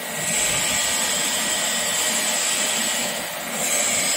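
Steady whirring machine noise with no break, from workshop machinery running.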